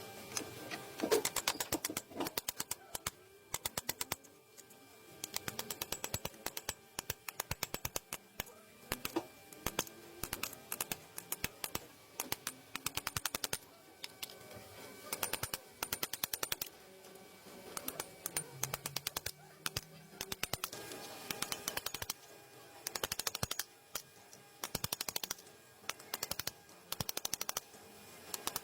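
Ratchet wrench clicking in quick bursts of fast, sharp clicks, over and over, as a part is turned in or out, with faint music underneath.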